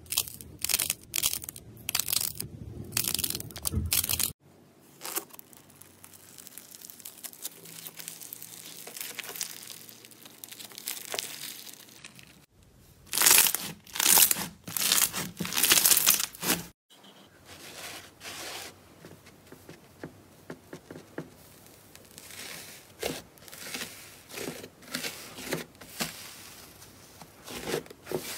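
Hands squeezing and pressing slime and soft clay: crackling, crunching and tearing in short bursts. The loudest part is a run of about five crackling presses in the middle, with dense crunching at the start and softer, sparser crackles later.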